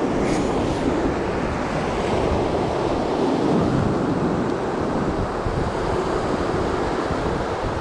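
Ocean surf washing steadily over the shoreline rocks, mixed with wind buffeting the microphone.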